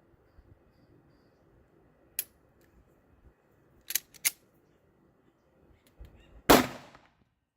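A single pistol shot from a short-barrelled Smith & Wesson M&P Shield in .40 S&W, a loud sharp crack with a brief echo near the end, preceded by three quieter sharp cracks.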